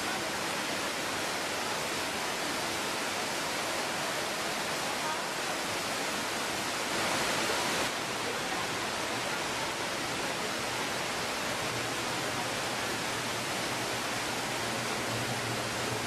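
Man-made waterfall: curtains of water pouring from a bridge into a canal, making a steady rushing hiss that swells briefly about seven seconds in.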